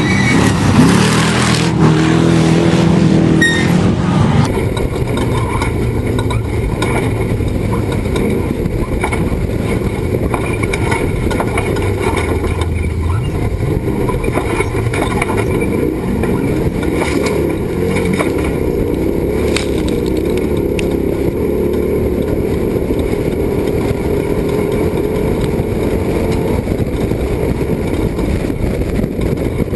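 Off-road race truck engine running hard under load, a dense steady mechanical noise. The sound changes abruptly about four seconds in, from a louder stretch with shifting engine pitch to a steadier run.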